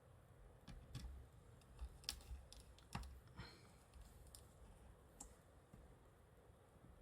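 Faint, irregular clicks and taps of small tools and tiny screws being handled against a smartphone's frame during reassembly.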